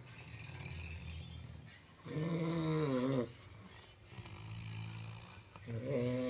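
Snoring: two long, pitched snores about four seconds apart, the first bending down in pitch at its end, with a quieter rasping breath between them.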